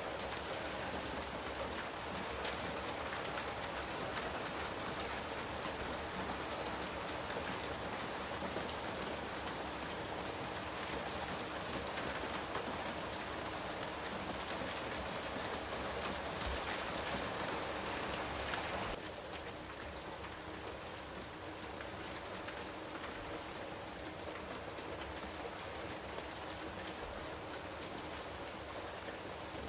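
Steady rain falling, a dense even hiss of drops. About two-thirds of the way through it abruptly turns a little softer and duller, then carries on steadily.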